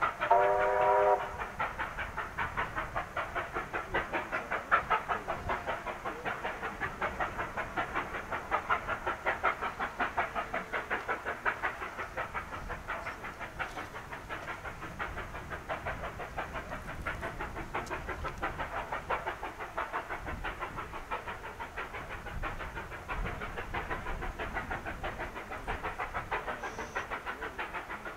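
Pacific-class steam locomotive 3801 working toward the camera, its exhaust beating in a quick, steady rhythm of about five beats a second. A train whistle blast ends about a second in.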